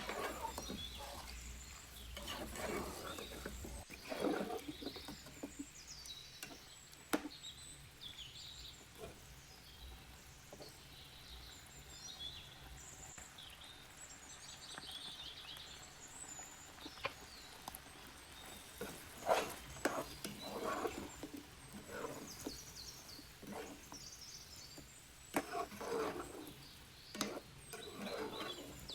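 Intermittent scraping and knocking of a spoon stirring food in a cooking pot, with birds chirping in the background.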